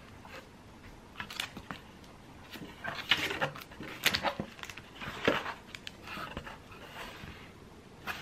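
Handling noise from unpacking a cardboard box: scattered short rustles of paper and packaging and light knocks as books are lifted out and set down.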